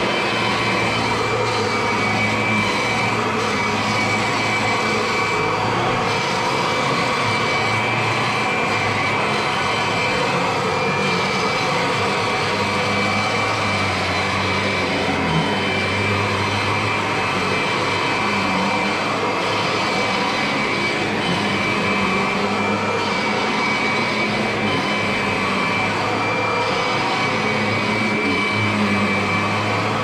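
Kirby upright vacuum cleaner running steadily on carpet: a loud rush of air with a steady high motor whine, the low hum swelling and easing as the head is pushed back and forth.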